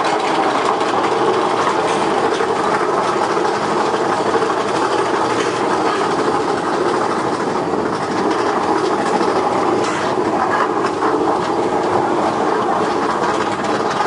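Big Thunder Mountain Railroad mine-train roller coaster heard from on board, climbing its lift hill: a steady, loud rattle of the train and the lift track with no letup.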